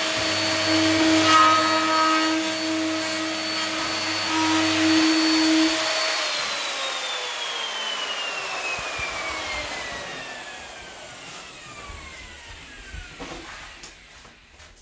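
Plunge router running at full speed while cutting a lock mortise in a door edge, then switched off about six seconds in and spinning down, its whine falling steadily in pitch and fading over several seconds.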